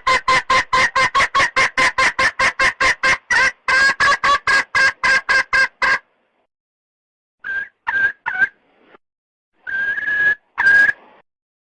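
Red junglefowl hen calling: a fast run of clucking notes, about four or five a second, stops about six seconds in. After a short pause come three short clucks, then one longer drawn-out note and a final short one. This is the hen's call used to lure a rooster.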